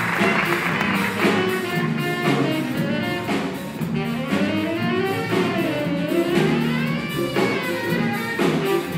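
Live big band jazz: a saxophone solo over the band, with piano and drum kit keeping a steady beat. The solo line swoops down and back up about halfway through.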